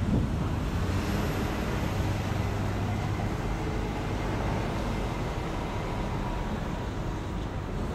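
Steady road traffic noise on a busy city street, with cars running past, and a low engine hum between about one and four seconds in.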